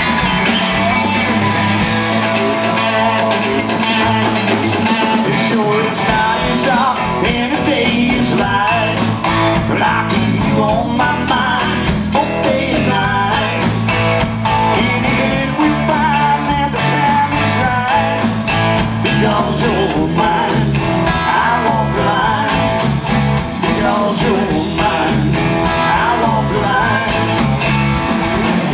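Live rock band with two electric guitars, electric bass and drum kit playing an instrumental stretch, with a lead electric guitar line bending in pitch over the steady bass and drums.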